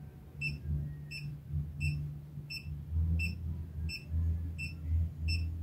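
Short electronic beeps repeating evenly, about one every 0.7 seconds, from a handheld long-range gold locator whose antenna is circling as it searches for a buried target. A low steady hum runs underneath.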